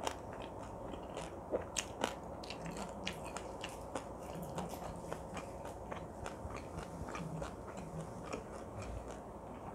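A person chewing marinated grilled pork galbi close to the microphone, ASMR-style eating sounds with scattered sharp clicks, the loudest about two seconds in.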